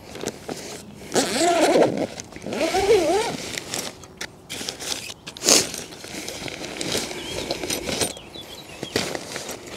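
Zip on the nylon carry bag of a carp-fishing bivvy pulled open in two long wavering rasps, followed by rustling of the bag and folded shelter fabric as it is handled, with a sharp crack about five and a half seconds in.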